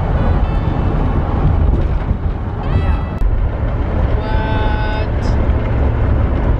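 Steady engine and road rumble heard from inside a moving van's cab. A woman's voice rises briefly about three seconds in, then holds a note for about a second a little later.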